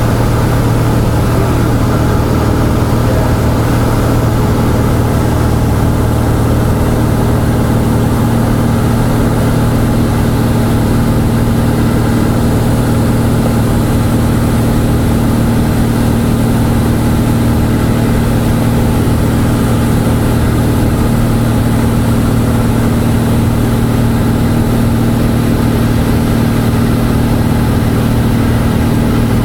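Cessna 172's piston engine and propeller droning steadily in flight, heard from inside the cabin as a constant low hum with no change in pitch.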